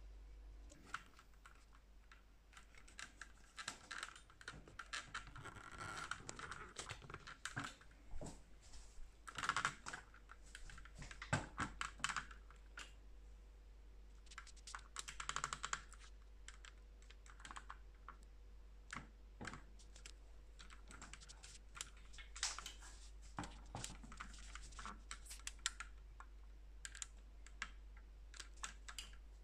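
Handling noise from a phone being fitted onto a stand: irregular faint clicks, taps and rubbing.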